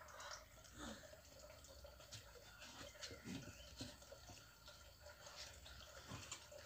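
Near silence, with faint scattered drips and small splashes of water as a hand works in shallow muddy water.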